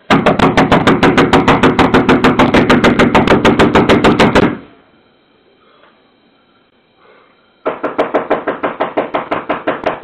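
A fist pounds rapidly on a front door, about nine blows a second for about four and a half seconds, close to the doorbell camera's microphone. After a short pause, a second slightly quieter run of rapid knocking on a window starts about three-quarters of the way in.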